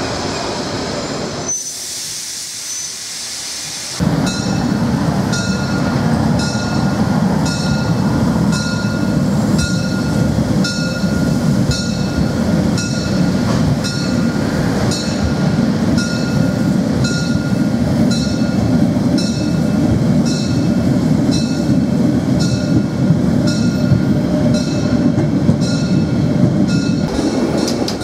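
Bäderbahn Molli narrow-gauge steam train running along the track: a steady heavy rumble with wheel squeal and regular rail clicks about once a second. A couple of seconds of hiss with little low end come in about two seconds in, before the rumble resumes.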